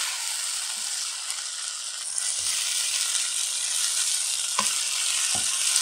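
Spaghetti, chicken and vegetables sizzling in a hot non-stick wok while being tossed with a wooden spatula: a steady sizzle, with a couple of brief knocks of the spatula near the end.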